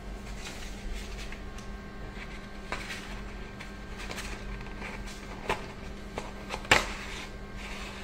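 Steady low hum with a few sharp knocks and clicks from a sheet of corrugated cardboard being handled against a microwave moisture sensor's mounting plate; the loudest knock comes about two-thirds of the way in.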